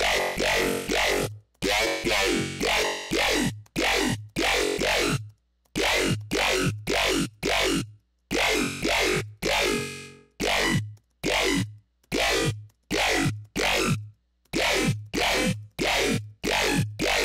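Dubstep bass one-shot synthesized in Xfer Serum, triggered over and over in short runs of about two hits a second with brief gaps, its growling timbre changing from hit to hit as the filter cutoff is moved.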